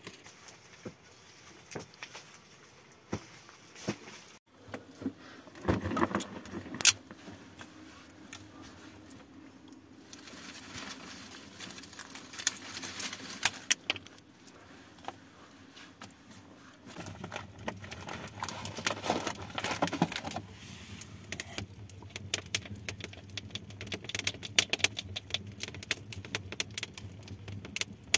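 Campfire embers crackling with sharp metallic clinks as a steel rod is poked and scraped through the glowing coals.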